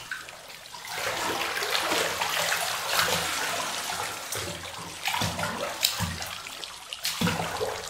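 A cloth swished, dunked and lifted by hand in a bathtub of water, irregular sloshing and splashing in several surges: a home-made sound effect of someone swimming in a pond.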